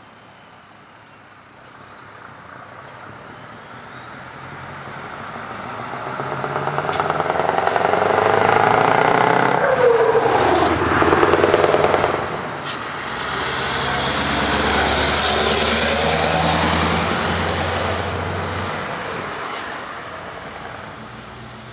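Two Scania V8 trucks drive past one after the other. Each engine grows louder as it comes close and fades as it goes away, and the pitch drops as the first truck passes. A few short sharp clicks sound along the way.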